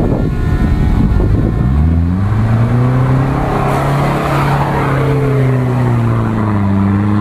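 Toyota 4Runner's engine revving under load as it drives close past and ploughs through an icy mud puddle, with water and broken ice splashing around the middle. The engine note climbs about two seconds in, then drops a little as it goes by.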